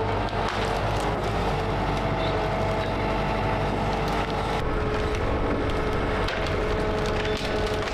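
Excavator engine running steadily while wood cracks and splinters in many short snaps, typical of the machine pushing through downed trees and branches.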